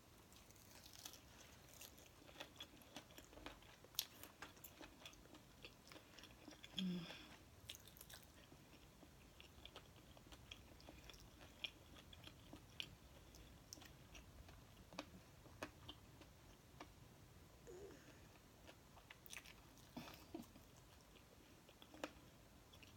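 Faint chewing and biting of fried chicken wing skin, with scattered small crunches and wet mouth clicks. A brief low voice sound about seven seconds in.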